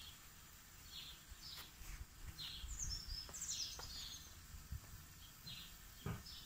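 Small birds chirping faintly, short high chirps about once a second, with a quick run of falling higher notes about three seconds in. A soft knock near the end.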